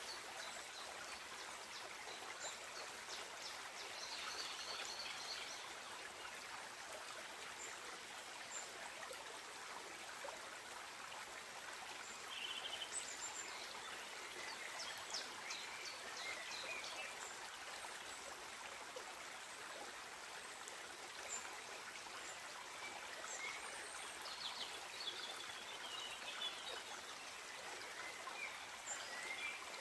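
Faint steady babble of a shallow forest creek, with a few short high chirps now and then.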